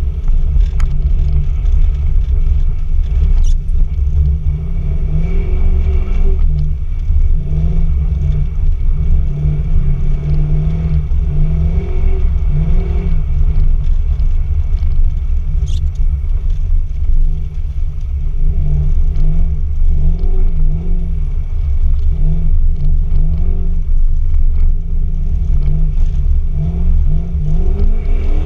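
Toyota Cresta's engine heard from inside the cabin while the car is driven hard on ice, its pitch rising and falling again and again as the throttle is worked, over a heavy low rumble. Near the end the engine revs up sharply.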